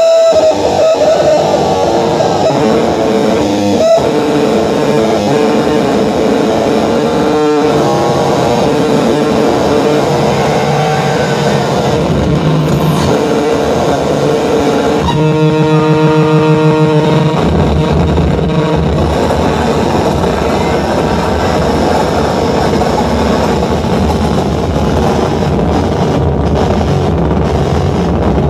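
Live noise music: loud, dense distorted electronic noise from effects pedals and a mixer over a held drone. A little past halfway it turns to a buzzing, rapidly pulsing stretch, and after that a low rumble runs underneath.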